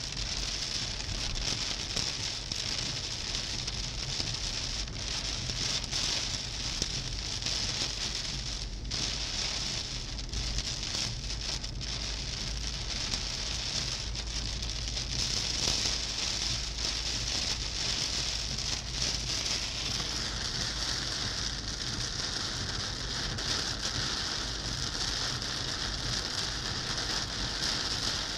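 Storm rain hitting the windscreen and body of a moving car, heard from inside the cabin as a steady hiss of countless small drop impacts, over the low, even rumble of the car on the road.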